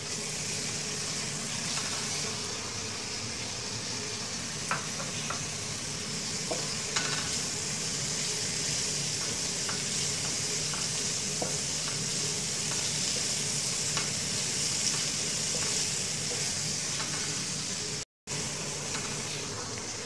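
Sliced onions and ginger-garlic paste sizzling steadily in hot oil in a karahi while they brown, stirred with a wooden spatula that scrapes and taps the pan now and then. The sound drops out for a moment near the end.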